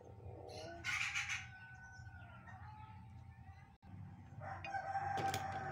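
A rooster crowing twice in the background: one long call starting about half a second in, and a second near the end, each held on one pitch before falling away.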